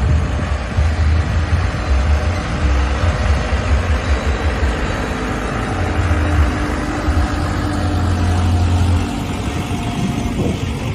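Vehicle engine rumbling low and uneven, with a steady hiss of street noise over it.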